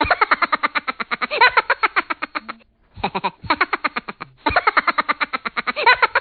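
A person's voice run through an editing effect that chops it into rapid, even pulses, about ten a second, with its pitch bending up and down. It breaks off briefly twice.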